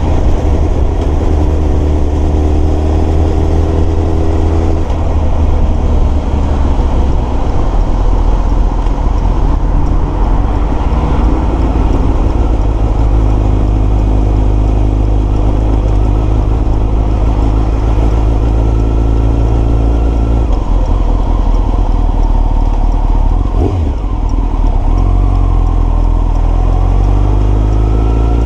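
Honda CBR929RR's inline-four engine running while the motorcycle is ridden, its note rising and falling with the throttle. There is a brief dip in the engine sound about four seconds before the end.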